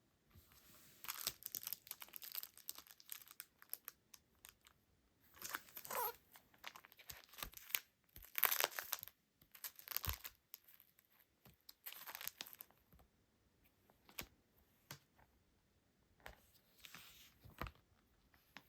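Packaging being torn open and crinkled by hand: several bursts of tearing and rustling, with light clicks and taps between them.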